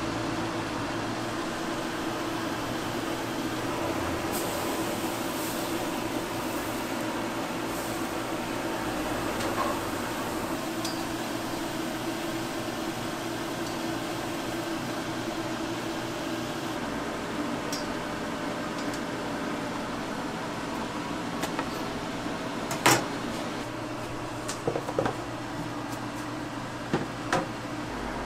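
Steady mechanical hum of kitchen equipment with a faint held tone. In the last few seconds come a handful of sharp knocks and clicks from cooking utensils and jars being handled, the loudest one first.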